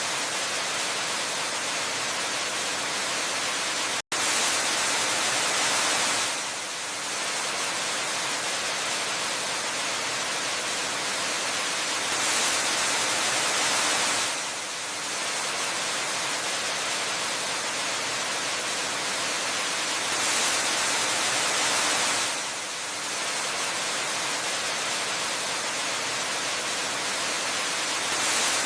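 Steady, hiss-like rush of a waterfall, with no separate splashes. It swells slightly about every eight seconds, and there is a split-second dropout about four seconds in.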